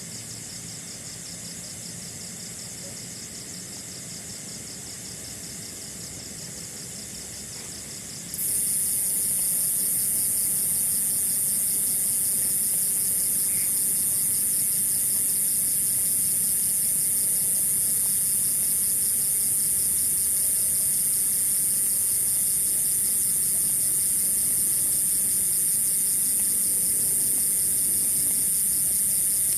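Forest insects chirping in a fast, even pulse. About eight seconds in they are joined abruptly by a much louder, steady, high-pitched insect buzz that carries on without a break.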